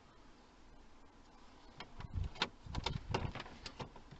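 Small plastic cup-holder trim covers on a Mercedes SL R230 centre console, pressed into place by hand. A run of light clicks and knocks starts about two seconds in.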